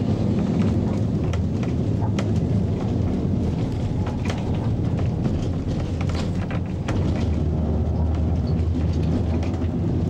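Heritage electric tram running along its track: a steady low motor hum with the car's wheels and body clicking and rattling throughout.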